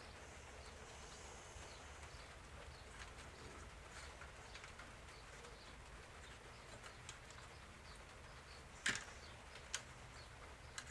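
Quiet room tone with faint handling of small plastic toy parts: light ticks and scrapes, a sharp click about nine seconds in and a smaller one about a second later.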